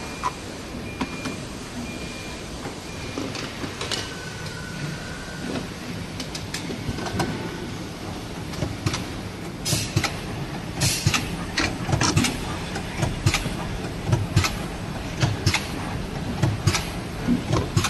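Automatic battery welding machine running: steady machine noise with sharp clicks and clacks that repeat about once or twice a second from about halfway through. A pulsing electronic beep sounds for the first few seconds, then stops.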